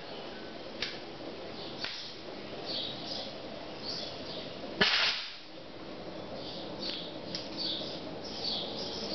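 A sharp pop about five seconds in, after a few lighter clicks, with short high chirps like small birds scattered through the rest.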